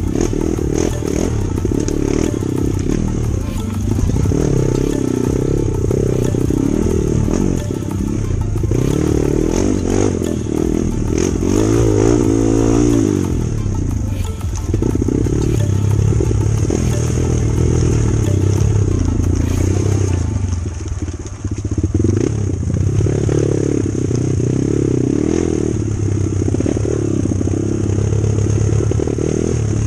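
Kawasaki KLX trail bike's small single-cylinder four-stroke engine ridden hard on a dirt trail, revving up and down with the throttle, with a short drop in revs about twenty seconds in.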